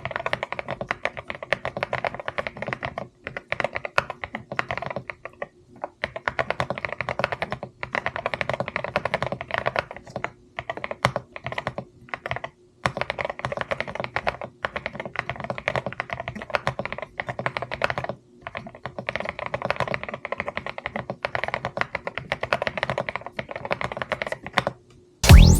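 Typing on a CIDOO ABM066 Alice-layout mechanical keyboard with Akko Bun Wonderland keycaps: fast runs of key strokes broken by short pauses. Loud music cuts in right at the end.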